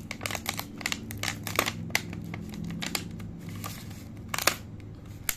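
Clear plastic food container crinkling and clicking as it is handled and pried open: a run of sharp crackles and snaps, the loudest about one and a half seconds and four and a half seconds in.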